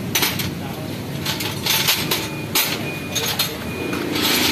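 Small metal parts and hand tools being handled on a concrete floor: several short clinks and scrapes spread over a few seconds.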